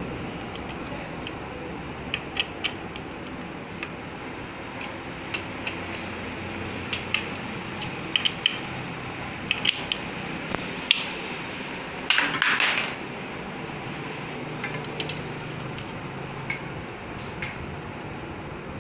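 Scattered light clicks and clinks of tools and metal bicycle parts being handled, with a short, louder rattling clatter about twelve seconds in, over a steady background hiss.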